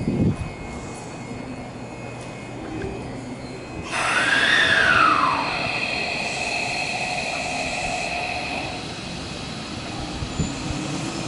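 Hanshin 5700-series electric commuter train moving through the station. About four seconds in, a whine rises and then falls in pitch, followed by steady high tones.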